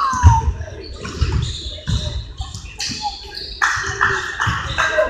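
Basketball game sounds echoing in a large gym: a short falling squeak at the start, scattered dull thuds of the ball bouncing on the hardwood floor, and players' and spectators' voices.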